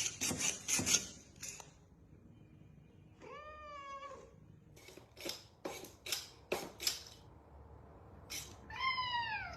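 A cat meows twice: one drawn-out meow about three seconds in and one falling in pitch near the end. Scattered sharp clicks and taps come in between.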